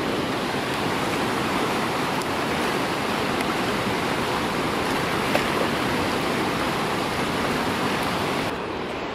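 Whitewater rapids rushing steadily, a dense even roar of churning river water; near the end it turns slightly quieter and duller.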